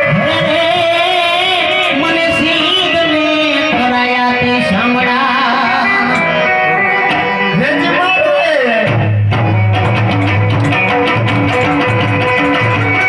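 Loud live Indian folk music played through a sound system: a wavering, ornamented melody line with some singing, joined about nine seconds in by a steady, heavy drum beat with percussion.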